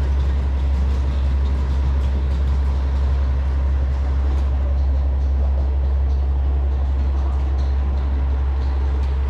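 Diesel railcar's engine idling while it stands at the platform: a loud, steady low drone.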